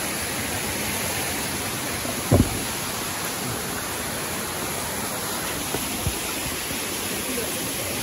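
Steady rush of water at a waterfall, with a short low thump about two seconds in and a smaller one about six seconds in.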